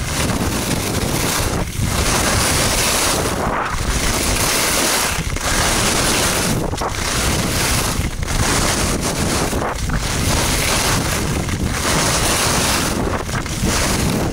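Wind rushing over an action-camera microphone together with skis hissing and scraping on groomed snow during a fast downhill run. The rushing noise dips briefly and comes back about every one and a half seconds.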